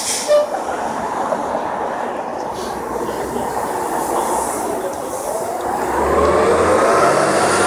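CNG-powered Orion transit bus pulling away from a stop and driving past, its engine running steadily. From about six seconds in it grows louder as it accelerates, with a whine that rises in pitch.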